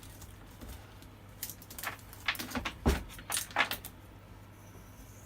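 A run of sharp metallic clinks and knocks from a chainsaw guide bar and parts being handled, the loudest, with a low thud, about three seconds in.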